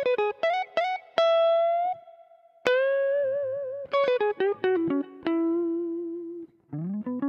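Intro music: a guitar picking a melody of single notes, some held with vibrato, with a slide up into a note near the end.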